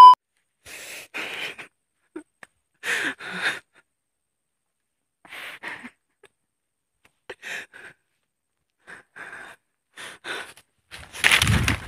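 A man's short, breathy gasps and sighs, mostly in pairs, every second or two with silence between. Near the end a louder rustling noise starts.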